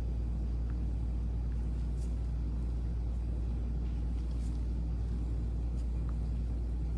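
Steady low-pitched hum with a few faint clicks.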